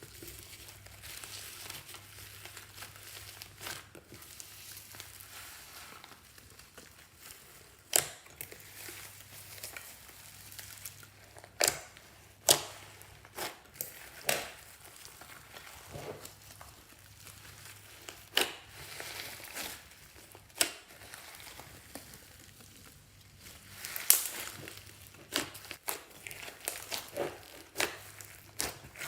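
Slime being squished and worked by hand, crackling with irregular sharp pops as air pockets burst.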